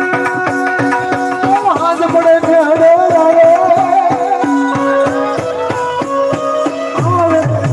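Live bhajan music: a harmonium holding steady chords over a fast, even percussion beat, with a wavering sung melody coming in about two seconds in.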